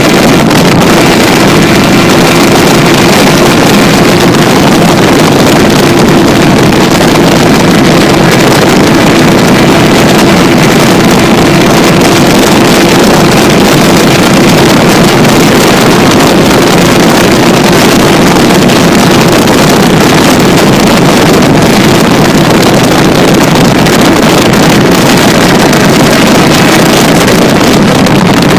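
Suzuki Bandit 600's inline-four engine running through a D&D slip-on exhaust, held at steady revs with no breaks, heard from a phone in the rider's backpack with wind noise over it.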